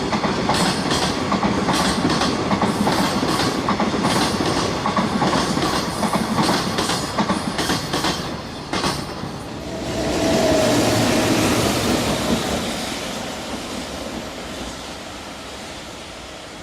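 A passing train, its wheels clattering in a steady clickety-clack rhythm over the rail joints for about eight seconds. Then a second swell of train noise with a brief high tone about ten seconds in, which fades away.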